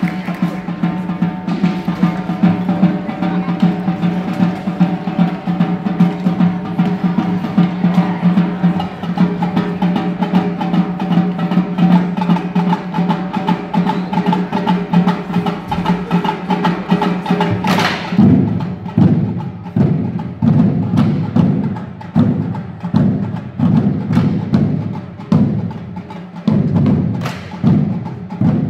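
Marching drum line of snare, tenor and bass drums playing. A sustained low roll with rapid sticking runs for the first part, then a loud crash about 18 seconds in and a chain of heavy, evenly spaced drum hits.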